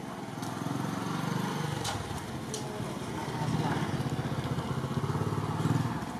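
A small engine running with a fast, even pulse, growing louder twice, with a few light clicks over it.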